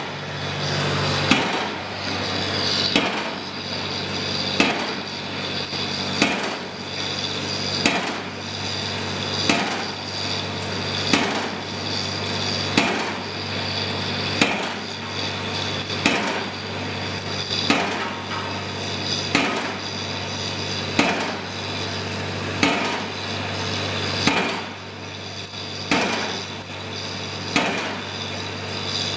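Piling rig's hammer striking at an even pace, one sharp blow about every second and a half, over the steady low hum of the rig's engine.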